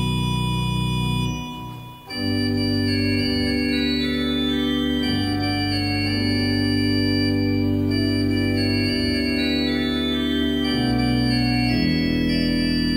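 Pipe organ playing sustained chords: the 1974 Fiss/Laukhuff two-manual, 22-rank mechanical-action organ, with Neo-Baroque voicing and no reed stops. The sound fades to a brief gap about a second and a half in, then a new full chord enters about two seconds in and is held while inner voices move.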